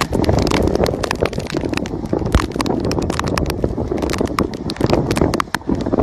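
Water spattering and splashing in many irregular sharp drops over a steady low rumble, like a vehicle moving through floodwater or heavy rain striking it.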